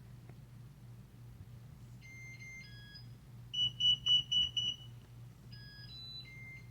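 Electronic chime tones from smart-lock pairing equipment: a short run of stepped tones, then five quick high beeps, then another run of stepped tones near the end. They mark the setup connecting to the Connect Wi-Fi bridge.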